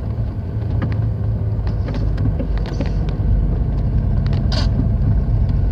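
Road vehicle driving along: a steady low engine and road drone, with light scattered rattles and clicks and a sharper click about four and a half seconds in.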